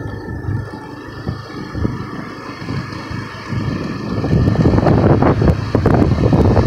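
Motorbike running along a road, heard from the pillion seat, with wind rushing over the microphone, louder and gustier from about four seconds in.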